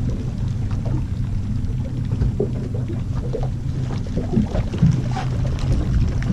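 A boat's engine running with a steady low drone, with occasional short knocks over it.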